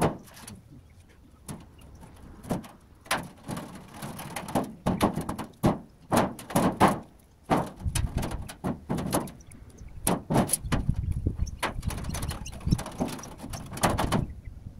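Sheet-metal valley gutter being worked by hand into place on a tiled roof: irregular knocks, clatters and scrapes of the metal sheet, with a low rumble in the second half.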